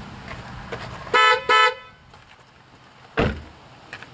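2010 Honda Accord's horn sounding two short beeps in quick succession about a second in. A single thump follows about two seconds later.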